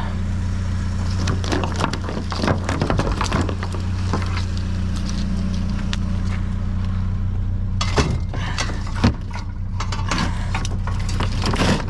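Truck engine idling steadily, with scattered clattering and rustling as scrap is handled and a couple of sharper knocks about 8 and 9 seconds in.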